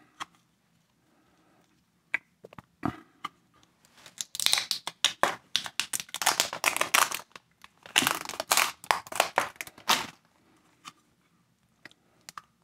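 Tape being peeled and torn off a 3D-printed plastic mold, crinkling and crackling in two spells of a few seconds each, with a few scattered clicks before them.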